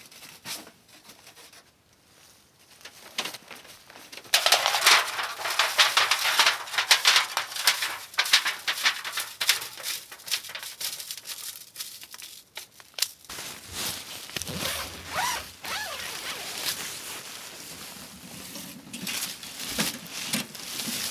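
Rustling and crinkling of gear being handled. It starts suddenly about four seconds in, is loudest for the next several seconds, then goes on more softly.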